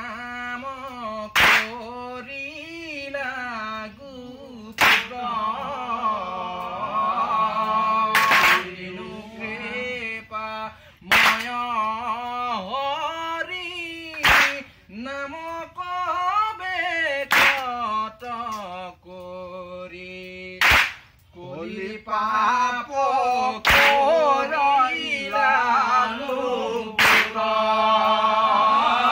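Group of men singing an Assamese naam prasang devotional chant in unison, with one sharp hand clap about every three seconds keeping time.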